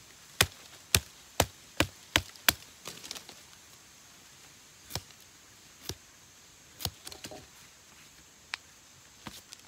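Machete chopping through a bundle of kepompon plant stems laid on a log: six sharp strokes in quick succession about half a second apart, then a few slower, scattered cuts.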